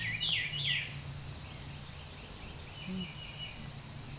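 A songbird singing a short run of quick up-and-down whistled notes in the first second, with fainter song around the middle, over a steady high-pitched tone.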